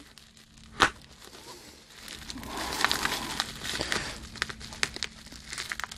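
Plastic shrink wrap being cut and peeled off a boxed vinyl figure: a sharp click about a second in, then a couple of seconds of dense crinkling and ticking.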